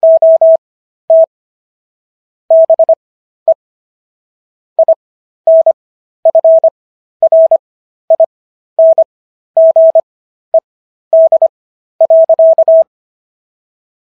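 Morse code sent as a single steady tone keyed on and off in dots and dashes, at 15 words per minute with Farnsworth character spacing. The keying stops about a second before the end.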